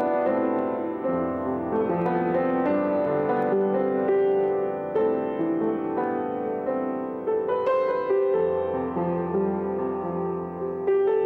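Upright piano being played: a slow melody over held chords.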